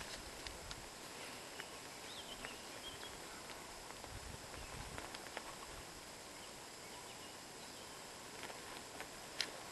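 Faint footsteps on a forest path, soft irregular crunches and knocks, over quiet outdoor ambience with a single short bird chirp a little over two seconds in.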